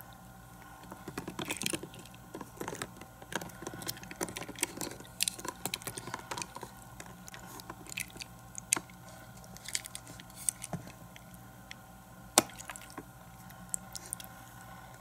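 A die-cast toy car and a plastic playset handled: scattered small clicks and taps, with light splashes and drips as the car is dipped in and out of cups of water.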